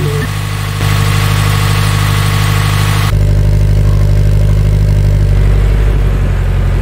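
Toyota 86's flat-four engine idling. About three seconds in the sound turns deeper and steadier, heard close to the exhaust tailpipes.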